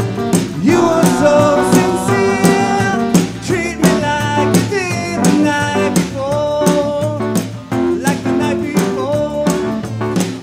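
Live band playing a blues-rock number: drum kit, electric guitar and bass, with regular drum hits.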